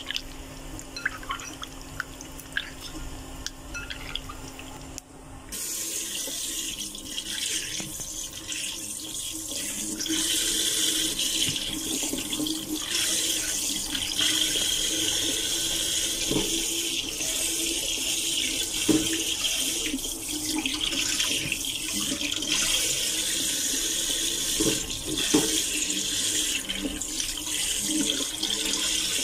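Kitchen tap running into a stainless steel sink while raw chicken pieces are rinsed under it by hand, the stream splashing into a bowl. The water comes on about five seconds in and gets louder about ten seconds in.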